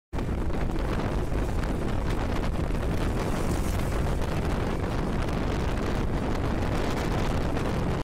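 Wind buffeting the microphone of a moving two-wheeler, over steady road and traffic noise.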